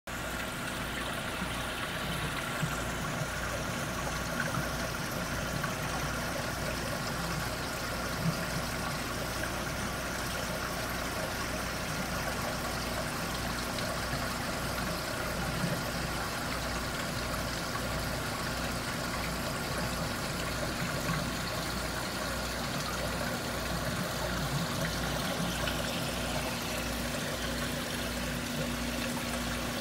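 Steady hum and rush of water from saltwater aquarium pumps and filtration, running without a break.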